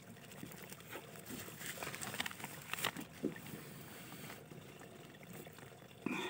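Faint rustling of a jute sack being handled and pushed down into a hole in the ground, with a few light crackles and ticks in the middle.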